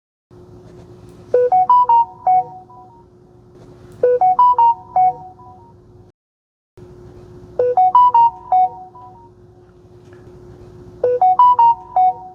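Samsung Galaxy default notification chime played from the phone's speaker at 50% volume, four times: twice from a Galaxy S22+ and, after a brief cut to silence, twice from a Galaxy S22 Ultra. Each chime is a quick bright run of about five bell-like notes, over a faint steady hum.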